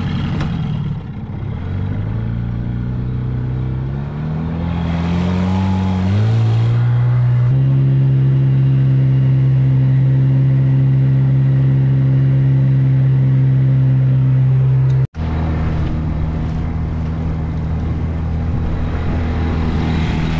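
Small outboard motor on an inflatable dinghy running under way, just after starting on the first pull: its pitch climbs in steps over the first several seconds as the throttle opens, then it holds a steady cruising drone. It cuts out for an instant about three-quarters of the way through and resumes a little lower.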